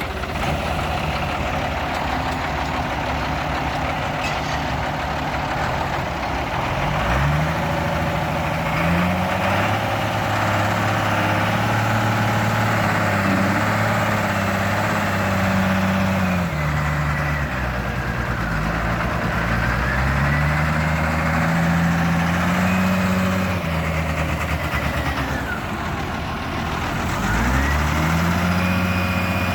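Komatsu WA350 wheel loader's diesel engine running and revving up and down repeatedly as the loader works, with a whine rising and falling alongside the engine.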